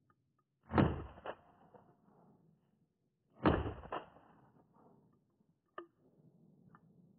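Two shotgun shots about two and a half seconds apart, each followed about half a second later by a fainter crack.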